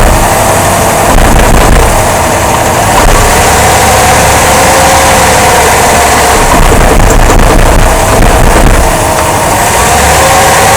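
2005 Jeep Grand Cherokee 5.7 L 4x4 running with a loud low rumble and a steady hum that drifts slightly in pitch. This is the thumping noise traced to a worn front drive axle support rubber bushing and a bad front driveshaft universal joint.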